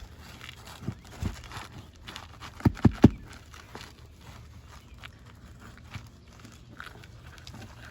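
Knocks and scraping on asphalt 3-tab roof shingles as they are unsealed and their nails pried out, with three sharp knocks in quick succession about three seconds in.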